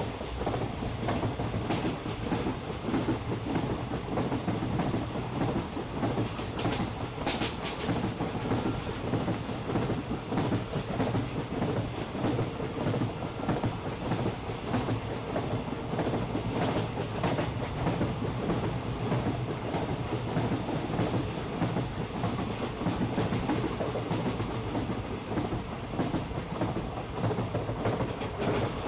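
Park toy train running along its track, a steady rumble with the continuous clatter of wheels over the rails.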